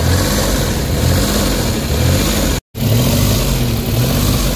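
Suzuki DA17's K6A three-cylinder engine running at idle, its pitch wavering up and down: a rough, hunting idle. The sound cuts out for a split second about two and a half seconds in.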